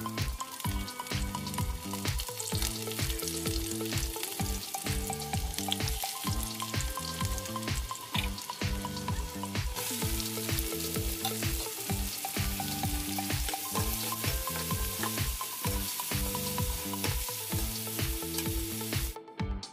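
Oil sizzling in a kadai, getting suddenly louder about halfway through as chopped onions go into the hot oil, with a metal slotted spatula stirring and scraping them. A steady background music beat runs underneath, and the sizzle stops just before the end.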